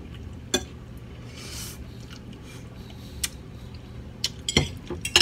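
Metal forks clinking and scraping against plates and a serving dish while eating: a handful of short sharp clinks spread out, the loudest one a little before the end.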